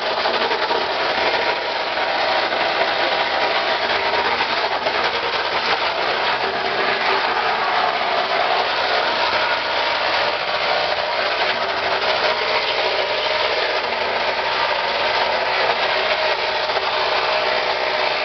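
A400 15 HP plastic granulator with a 10 mm screen running and chopping red plastic parts fed into its hopper: a steady, loud grinding clatter with fine irregular crackle.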